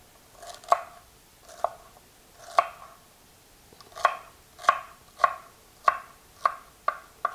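Chef's knife dicing celery sticks on a wooden cutting board, each cut a crisp knock of the blade through the stalks onto the board. About ten cuts: a few slow ones, then about two a second from a little past the middle.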